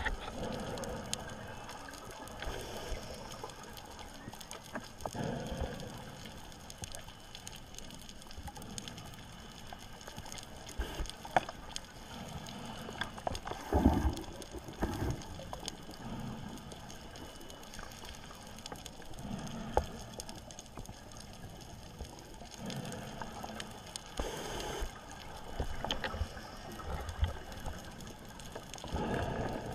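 Muffled underwater sound through a camera housing: soft whooshing swells every few seconds from a diver breathing on an ISC Megalodon closed-circuit rebreather, over a steady hiss. There are a few sharp clicks, the loudest about eleven and twenty seconds in.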